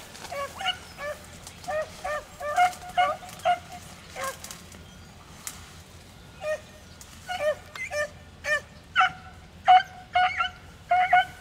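Beagles baying in short, high yelps: a scattered run at first, a lull, then a quicker string from about the middle on. The hounds are giving tongue while trailing a rabbit.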